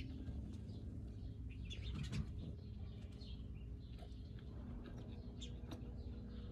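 Sparrows chirping: many short, scattered chirps over a steady low hum.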